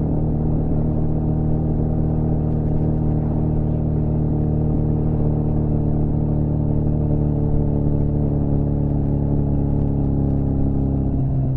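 Suzuki GSF 650 Bandit's inline-four engine running steadily through an unbaffled, cut-down Beowulf exhaust, the pitch dipping slightly just before the end.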